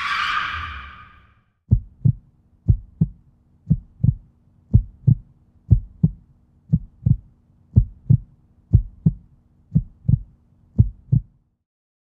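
A brief whoosh, then a heartbeat-style sound effect: a low double thump about once a second, ten times, over a faint steady hum. It stops shortly before the end.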